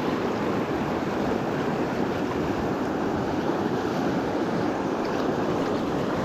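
Steady rush of flowing river water, an even noise with no break.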